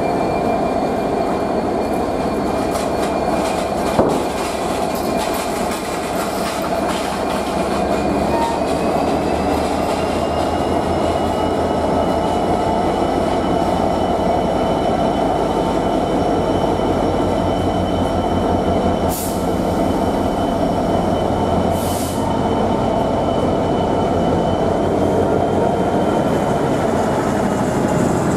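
GBRF Class 66 diesel locomotive's two-stroke V12 engine working as it hauls a rail head treatment train slowly through the station, with a whining tone that steps up in pitch about eight seconds in. A single knock comes about four seconds in, and two short high hisses come later.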